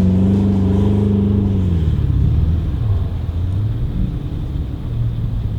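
A four-wheel drive's engine running hard at steady high revs, then easing off about two seconds in, with the pitch falling and the note going rougher.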